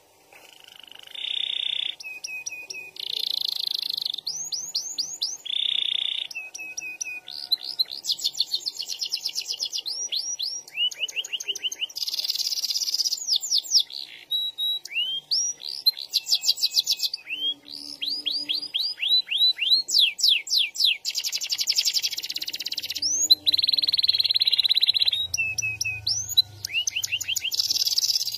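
Domestic canary singing a long, nearly unbroken song of rolling trills: runs of fast repeated chirps and sweeps that switch to a new phrase every second or two.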